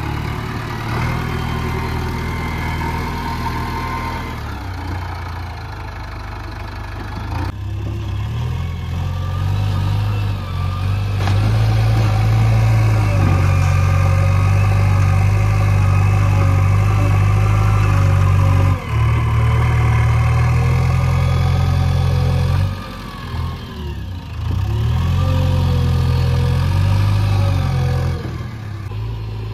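Diesel engine of a JCB 3DX backhoe loader running under work: moderate at first, then revving up about a third of the way in and holding high for several seconds. It drops back briefly twice before rising again.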